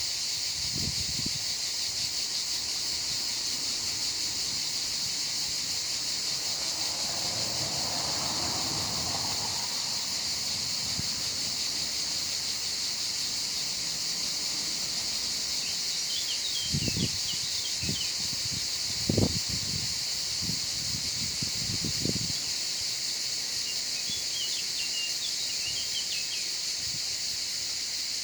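Steady high-pitched insect chorus. A handful of short dull knocks come in the second half, and there are faint high chirps.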